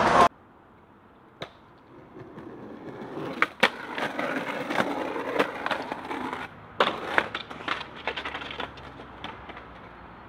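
Skateboard wheels rolling over concrete, with sharp clacks of the board and trucks hitting a concrete ledge and grinding along it. After a brief break a second run of rolling starts, with a quick series of clattering clacks from the board.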